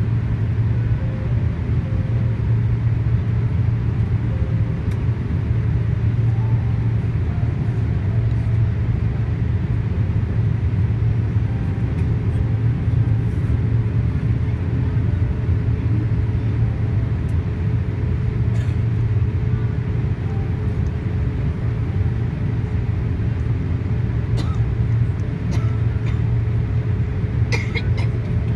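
Steady low rumble of a Boeing 787-8 in flight, heard inside the cabin at a window seat over the wing: engine and airflow noise.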